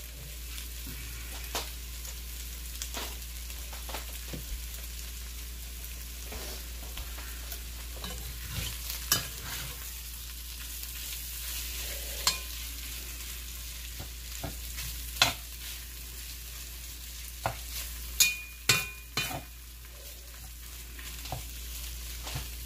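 Chicken strips frying on low heat in an enameled Dutch oven, a steady gentle sizzle, while a metal slotted spoon stirs them. Scattered clinks and scrapes of the spoon against the pot, the loudest a quick cluster about 18 seconds in.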